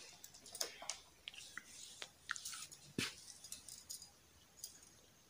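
Faint handling noise of a phone box being unpacked: cardboard and plastic packaging rustling and scraping, with scattered light clicks and a sharper knock about three seconds in.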